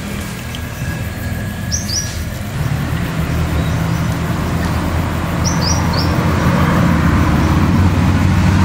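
An engine hums steadily in the background and grows louder about three seconds in. Short, high chirps from a small bird come twice, once as a quick pair and once as a triplet.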